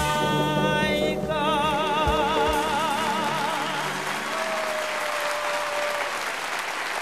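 A song ends on a long held sung note with a wide vibrato over sustained accompaniment, while applause comes up under it and carries on.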